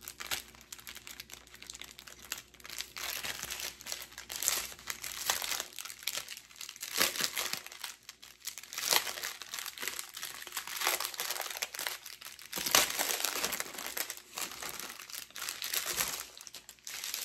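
A folded strip of small plastic drill bags from a diamond-painting kit crinkling and rustling as it is handled and unfolded, in irregular bursts of rustle.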